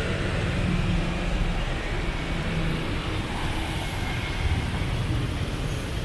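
Steady city street traffic noise, mostly a low engine sound with road noise, unbroken throughout.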